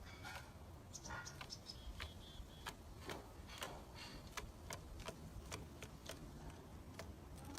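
Faint, irregular clicking and ticking, a few clicks a second, with a few short high chirp-like tones in the first two seconds.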